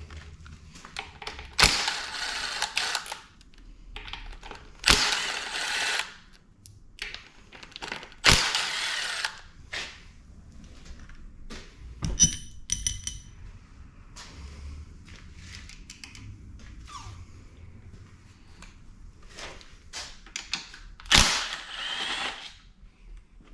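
A power tool run in four short bursts of about a second and a half each, loosening bolts on a Honda K20 engine's bottom end, with scattered clicks and a ringing clink of metal parts between the bursts.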